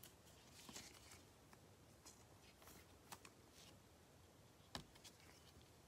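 Near silence with faint rustles and light clicks of glossy trading cards being handled and flipped through; the sharpest tick comes near the end.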